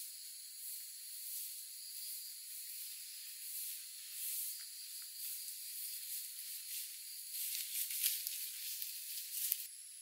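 Footsteps swishing through grass and undergrowth, growing louder near the end as the walker comes close, then cutting off suddenly just before the end. A steady high chirring of forest insects runs underneath. The sound is thin, with no low end.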